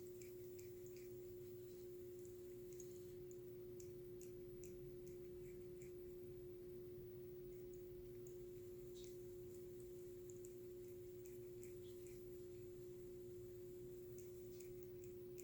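Faint steady hum at one pitch, with faint scattered clicks throughout.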